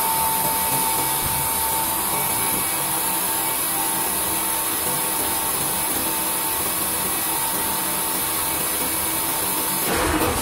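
Automatic paper blanking and waste-stripping machine running: a steady whirring noise with a constant whine, growing louder with a low rumble near the end.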